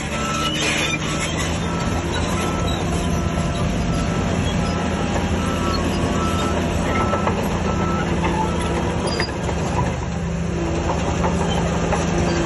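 Heavy earthmoving machinery running steadily, diesel engine droning, with a reversing alarm beeping at an even pace that stops about seven seconds in.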